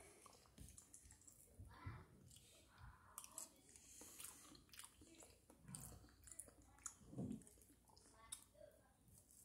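Faint close-up chewing of a person eating a breakfast sausage patty, with irregular small wet mouth clicks.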